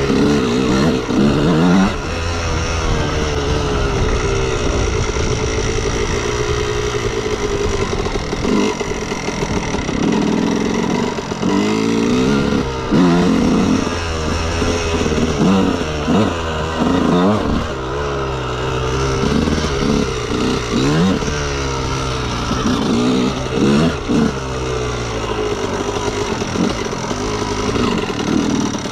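2003 Honda CR125R's 125 cc single-cylinder two-stroke engine being ridden hard, its pitch climbing and dropping back again and again as the throttle is worked.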